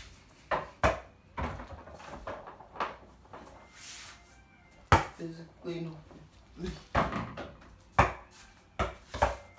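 Irregular thumps and knocks of a small ball bouncing on the floor and hitting a door-mounted mini basketball hoop, mixed with footsteps and jump landings. The sharpest knocks come about half a second and a second in, around five seconds in, and in a quick cluster near the end.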